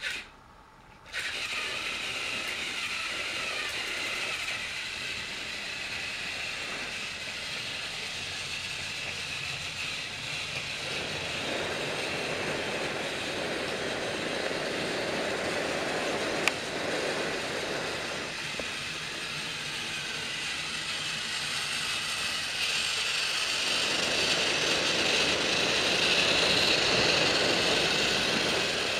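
Battery-powered TrackMaster toy train motor whirring steadily, with gear and wheel clatter on plastic track. It starts about a second in and gets louder near the end as the train comes close.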